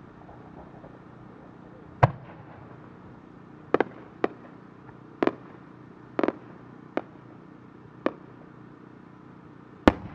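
Fireworks going off: about nine sharp, irregularly spaced bangs, some in quick pairs, over a steady low background. The loudest come about two seconds in and near the end.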